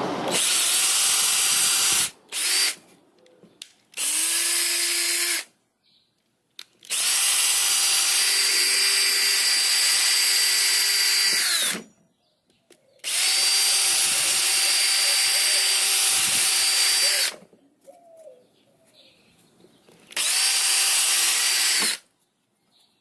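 Electric power drill running in five bursts of about two to five seconds each, its motor pitch steady and sliding down as each burst is let off. It is drilling holes up in the truck's wheel well to mount a mud flap.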